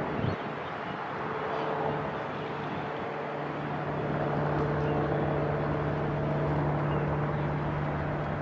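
A steady low mechanical hum from a running engine or motor that grows louder a couple of seconds in and stays strong through the middle, over outdoor background noise.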